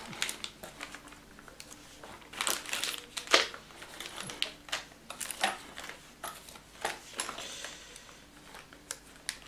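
Small clear plastic bags of screws and parts crinkling as they are handled, in short irregular crackles with light clicks.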